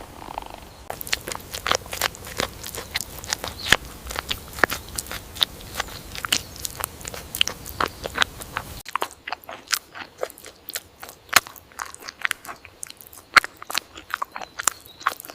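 Close-up eating sounds: biting and chewing with many sharp, irregular crunching clicks. The low background hum drops away abruptly about nine seconds in.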